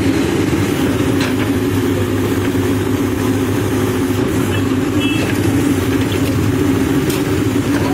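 Diesel engine of a Manitou TLB 844S backhoe loader running steadily while its backhoe arm digs, with a few faint clanks.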